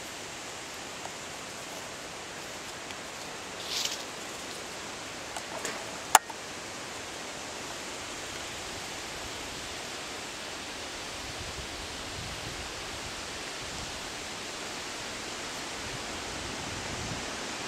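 Steady background hiss, with a short higher hiss about four seconds in and a single sharp click about six seconds in.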